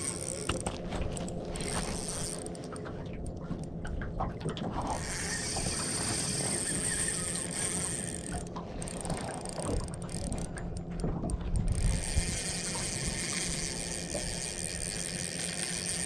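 Small spinning reel working on light bream tackle: its gears and ratchet clicking continuously with a rough, grinding texture.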